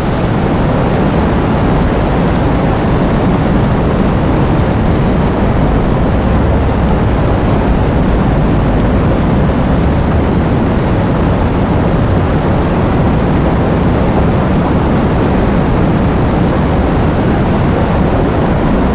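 Heavy rain and strong wind in a storm, a loud, steady rushing noise weighted towards the low end, with no separate hits.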